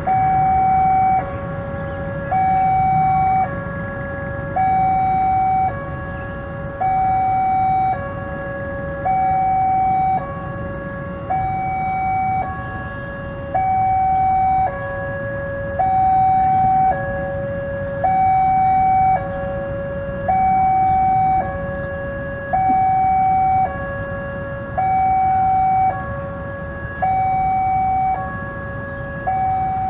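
Railway level-crossing warning alarm sounding while the barriers are down, warning of an approaching train: an electronic hi-lo two-tone signal, each tone lasting about a second, repeating steadily. A low traffic rumble runs underneath.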